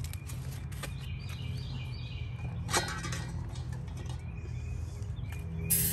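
Small birds chirping in the background over a steady low rumble, with two brief rustling sounds, one about three seconds in and one near the end.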